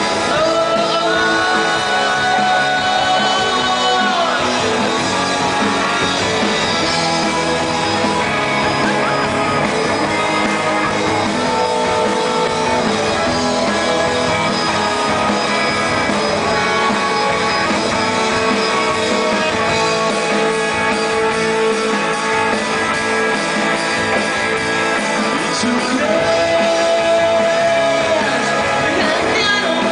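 Rock band playing live: electric guitars, electric bass and drums, with a man singing.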